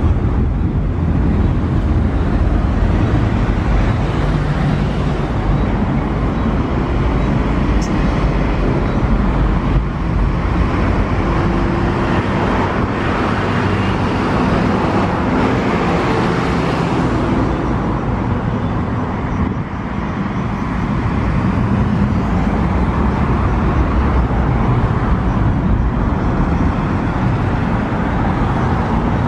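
Jet airliner's engines at takeoff power: a loud, steady rumbling roar as the aircraft rolls down the runway and climbs away.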